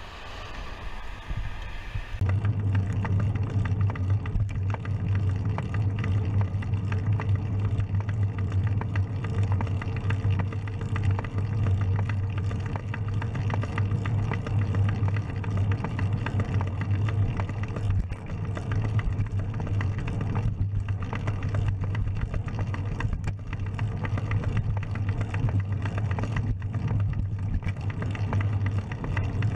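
Steady low rumble of wind and road noise on a bicycle-mounted camera while riding. It starts about two seconds in, after a quieter stretch.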